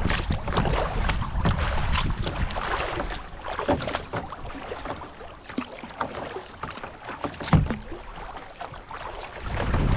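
Kayak paddling: the paddle blades dip and splash in the water in irregular strokes, with one sharper knock about seven and a half seconds in. Wind buffets the microphone at the start and again near the end.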